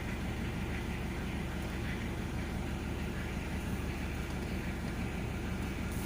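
Steady low hum of a car's engine idling, heard inside the cabin.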